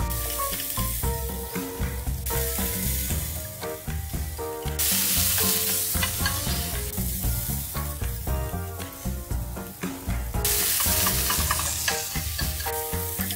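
Julienned zucchini, then cucumber, then sliced onion sizzling in oil in a nonstick wok while being tossed with wooden chopsticks. The sizzle jumps in level a few times, loudest from about five to ten seconds in. Background music plays throughout.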